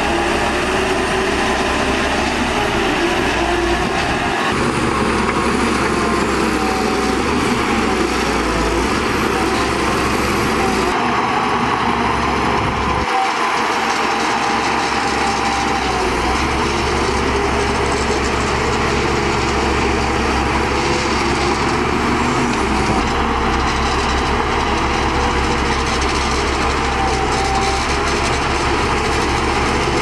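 Shantui DH17C2 crawler bulldozer working, its diesel engine running steadily as it pushes a load of dirt.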